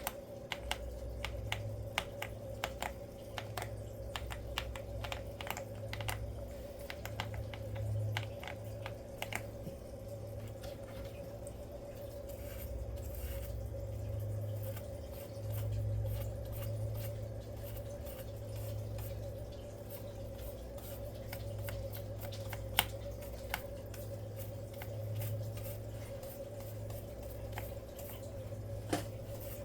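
Keyboard keys and plastic keycaps clicking in quick, irregular runs as caps are worked off and on, thinning out after about ten seconds, with one louder click near the end, over a steady hum.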